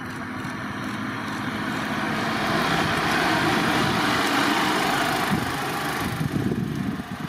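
Mercedes-Benz Unimog U5023 fire tanker's four-cylinder diesel engine and tyres on sand as it drives past close by, growing louder to a peak about halfway through and then fading as it moves away.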